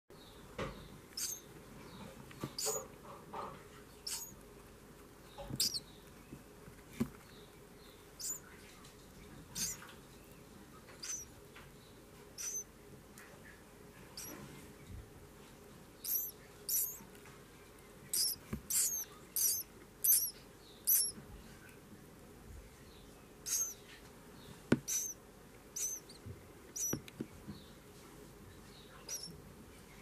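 Naked songbird nestlings begging with thin, high-pitched peeps that come irregularly, with a quick run of calls in the middle. A sharp click sounds about three quarters of the way through, and a few fainter clicks come elsewhere.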